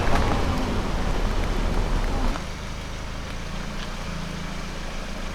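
Car driving on a road: a steady low rumble of tyres and engine that drops in level about two seconds in.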